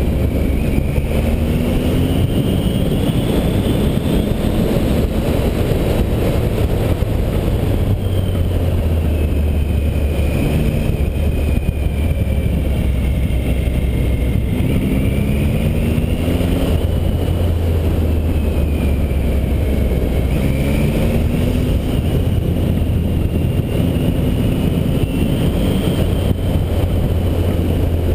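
Triumph Tiger 800 XC's three-cylinder engine running on the move, its note repeatedly climbing and falling as the rider works the throttle through the bends, over a steady low wind rumble on the microphone.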